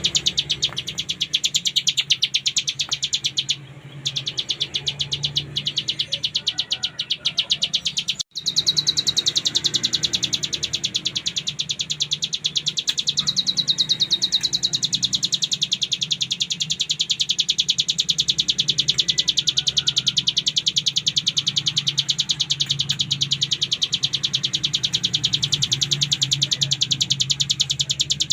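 A ciblek gunung (hill prinia) sings its buzzing "ngebren" trill: a very fast, unbroken run of high ticks. It drops out for a moment about 8 seconds in, then runs on.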